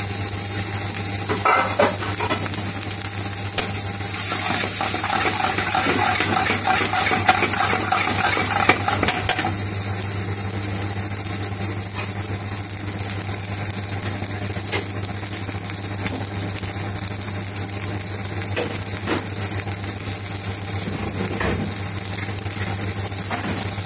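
Cooked pilau rice frying in oil in a frying pan, sizzling steadily as it is stirred through with a metal spoon, which clinks against the pan a few times. A steady low hum runs underneath.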